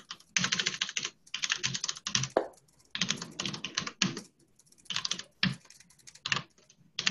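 Typing on a computer keyboard: keystrokes in several quick runs with short pauses between them.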